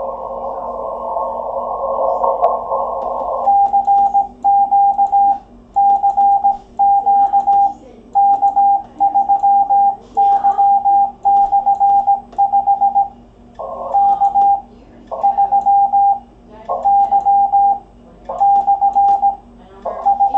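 Amateur radio CW station: receiver hiss through a narrow CW filter, then from about three and a half seconds in a steady single-pitched Morse code tone keyed by hand, the sidetone of the operator sending. In the later part short bursts of receiver hiss come back between groups of characters.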